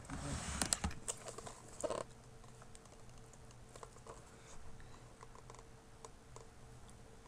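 Cardboard model box handled close to the microphone: rustling with sharp taps and clicks for about the first two seconds, then only faint scattered ticks.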